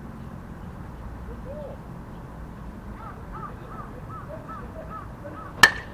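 A run of about eight faint, quick calls over steady outdoor background noise, then near the end one loud, sharp metallic ping with a short ring, typical of an aluminium bat hitting a baseball.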